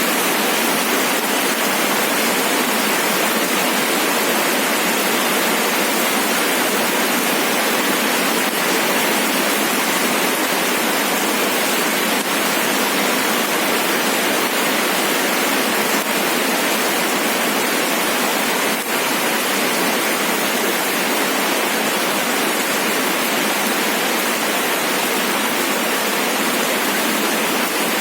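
Steady rain falling, an even, unbroken hiss with no low rumble.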